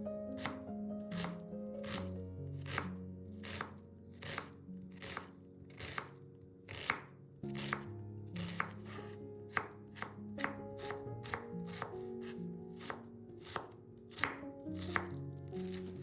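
Kitchen knife chopping vegetables on a cutting board, sharp knocks at about two a second, over soft background music.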